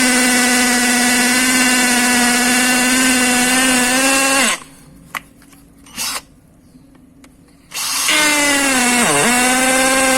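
Cordless hammer drill with a brushed 775 motor, in hammer mode on brick, whining steadily at full speed. It stops about halfway through, a click and a short blip follow, then it spins up again and its pitch dips briefly as it bogs under load.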